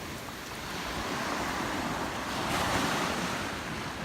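Ocean surf washing onto the beach, one wave swelling to its loudest a little past the middle and easing off, with wind rumbling on the microphone.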